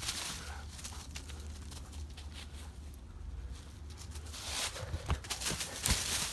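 Siberian huskies running through dry fallen leaves, their paws crunching and rustling the leaf litter in quick, uneven strikes. It goes quieter in the middle, then the rapid crunching comes back loud near the end as a dog runs close by.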